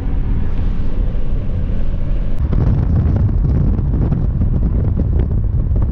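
Vehicle driving at highway speed: steady low road and engine rumble with wind buffeting the microphone, gusting more roughly from about two and a half seconds in.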